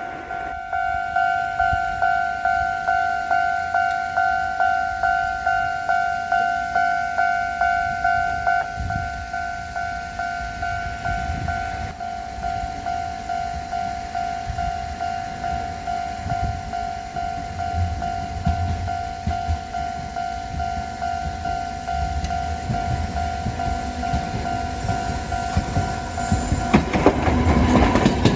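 Japanese level crossing's electronic warning bell ringing its steady two-tone 'kan-kan', about two strikes a second. A tram's rumble builds underneath from about halfway through, and the tram passes close near the end.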